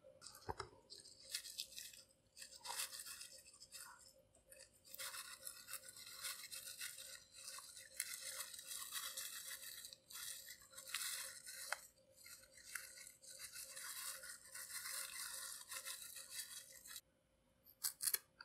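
Sugar sprinkles shaken from a small plastic packet onto a freshly iced cookie: a faint, fine hissing patter of tiny grains with crinkling plastic, in stretches of a few seconds. Near the end, two quick snips of scissors cutting open a plastic icing packet.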